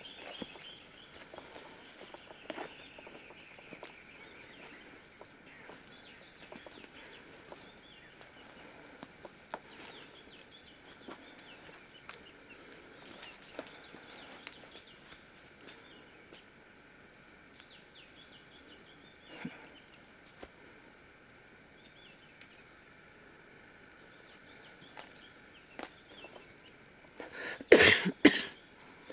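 Quiet woodland background with faint birdsong and the small scattered rustles and steps of someone walking through undergrowth. Near the end come two or three loud, sudden bursts of noise close to the microphone.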